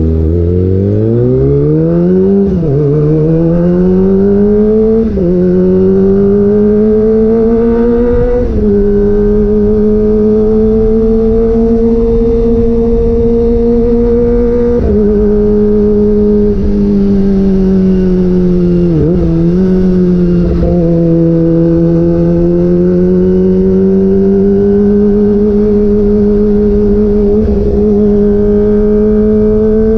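Exhaust note of a 2022 Kawasaki ZX-25R's 250 cc inline-four through a DX Generation GPR aftermarket exhaust with the dB killer removed. The bike pulls away from low speed with rising revs and three quick upshifts, each a sharp drop in pitch, then cruises at fairly steady revs with a couple of brief dips off the throttle.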